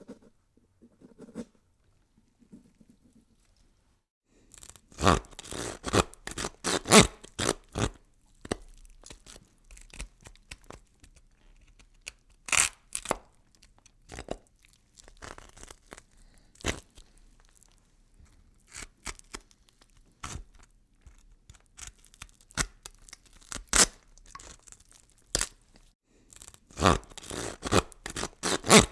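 Horror gore sound effect of irregular tearing and crunching, sharp cracks and rips in uneven clusters. It starts about four seconds in after a near-silent opening and is densest near the start of the effect and again near the end.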